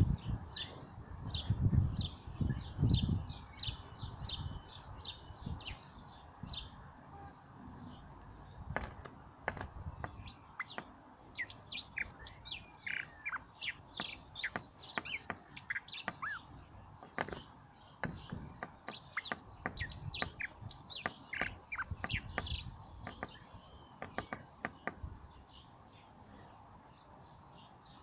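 Sparrows chirping, many short high chirps in quick series, busiest through the middle, with a couple of low thumps in the first few seconds.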